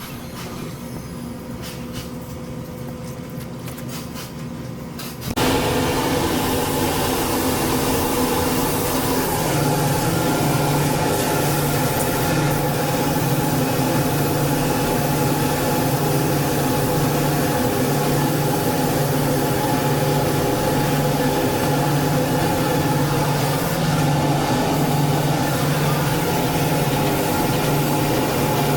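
A machine starts abruptly about five seconds in and runs steadily, with a low hum that pulses about once a second under a broad hiss.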